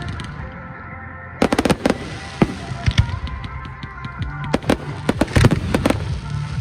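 Fireworks going off: a quick cluster of sharp bangs about a second and a half in, scattered single bangs, then another fast run of crackling bangs about five seconds in.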